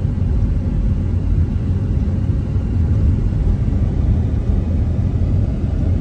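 Steady low rumble of a car driving on a dusty unpaved road, engine and tyre noise heard from inside the cabin.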